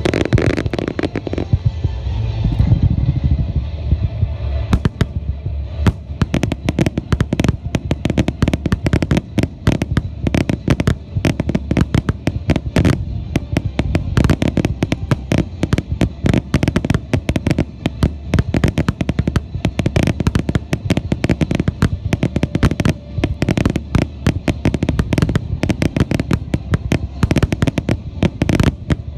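Starmine fireworks barrage: a dense, rapid string of shell bursts and bangs, thickening into a nearly continuous volley from about five seconds in, with music playing under the opening seconds.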